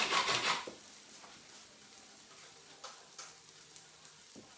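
A fast, even rasping scrape, like something rubbed or scraped on a kitchen counter, stops about two-thirds of a second in. A few faint light clicks of kitchen utensils follow over a faint steady hum.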